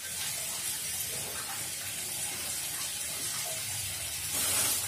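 Steady hiss of running water in a small tiled room, with a brief louder rush near the end.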